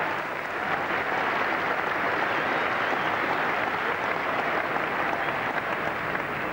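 Cricket crowd applauding steadily, greeting the batting side's total reaching 150.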